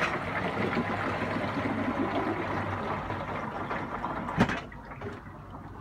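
Water rushing steadily down the sink drain into a black plastic holding tank. A sharp knock comes about four and a half seconds in, after which the rushing is much quieter.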